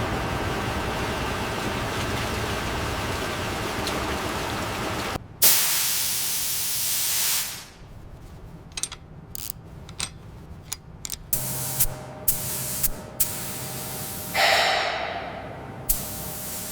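Steady hissing noise that gives way, about five seconds in, to a sudden louder burst of hiss lasting about two seconds, then scattered sharp clicks and knocks, and near the end a second short hiss falling in pitch.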